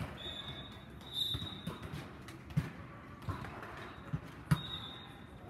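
Volleyballs being struck and bouncing in a large echoing hall: three sharp smacks in the second half, the loudest near the end. Short high squeals come in between.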